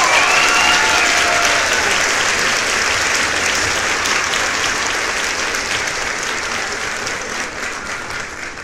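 Crowd applause, a dense steady clapping, with a few cheers over it at the start, gradually dying down toward the end.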